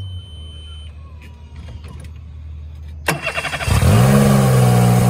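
Mercury 40 hp four-stroke outboard cranked about three seconds in. It catches within a second, then rises and settles into a loud, steady fast idle. The high idle is the fault, which the owner puts down to a failing idle air control (IAC) valve.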